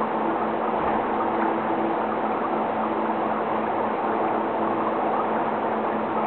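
Aquarium equipment running: a steady low hum with an even hiss over it, unchanging throughout.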